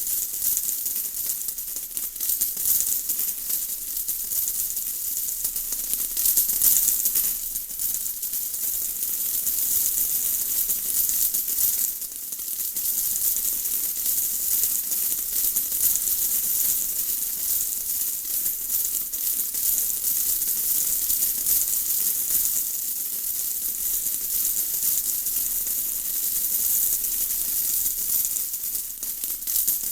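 Steady rain falling: a dense, even hiss of countless fine drop patters, with no thunder.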